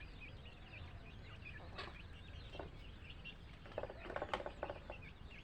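Chickens clucking, with many short high calls from chicks throughout and a few louder clucks about two and about four seconds in.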